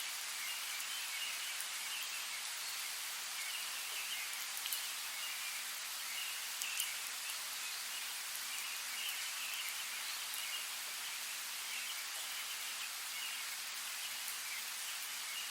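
Steady rain falling in a forest, an even hiss with a few sharper drips standing out about five and seven seconds in.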